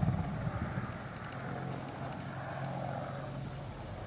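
Boeing AH-64D Apache helicopter in display flight: the pulsing beat of its main rotor over the whine of its twin turboshaft engines, loudest at first and a little quieter after about a second.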